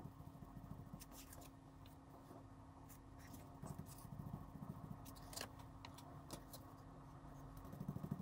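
Faint, sped-up dabbing and rustling of a sea sponge and a cardstock stencil on a foam board, over a steady low hum.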